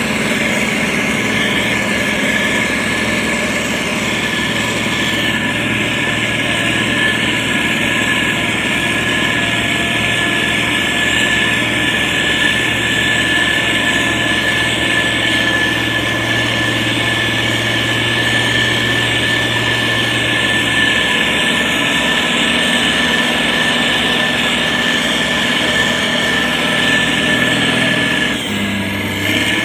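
Diesel engine of a SANY STG190C-8S motor grader running steadily as the machine works, with a steady high whine over the engine note. The sound dips briefly about a second before the end.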